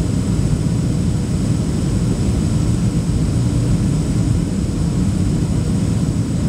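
Steady cabin noise inside a Boeing 737-800 on approach: a constant low rumble of airflow and its CFM56 jet engines, with faint steady whines above it.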